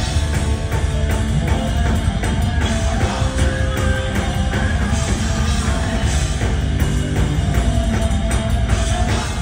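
Thrash metal band playing live at full volume: distorted electric guitars, bass and drum kit, loud and dense throughout.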